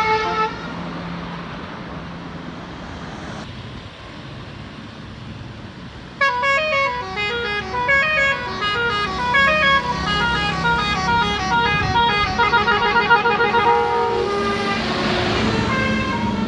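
Indonesian bus 'telolet' horn: a bus's set of tuned air horns playing a rapid stepping melody. It starts suddenly about six seconds in and plays for about eight seconds over the steady rumble of the bus engine. The tail of an earlier burst of the tune fades in the first half-second.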